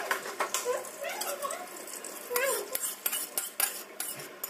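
Kitchen utensils clinking: a metal spoon tapping and scraping against jars and pots in a run of sharp, irregular clinks. A few short, high, rising vocal squeaks come in between, near the start and about halfway through.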